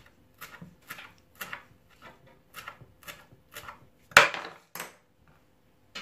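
Kitchen knife chopping fresh dill on a wooden cutting board, short knocks about two a second, then a louder, longer scrape of the blade across the board about four seconds in.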